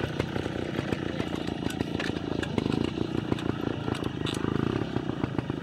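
Trials motorcycle engine running with a rapid, steady putter, the revs rising a little now and then.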